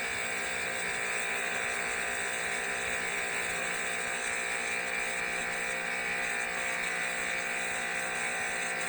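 A 4,351 PSI (30,000 kPa) pressure washer running steadily, its motor and pump humming under the hiss of the high-pressure water jet blasting paint off concrete.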